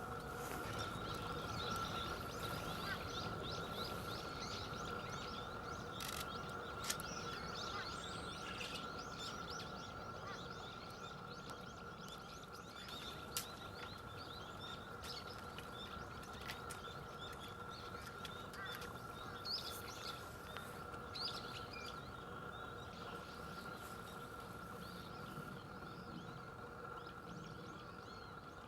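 Small birds chirping and twittering, over a steady faint high-pitched hum. There is a sharp click about a quarter of the way in and another near the middle.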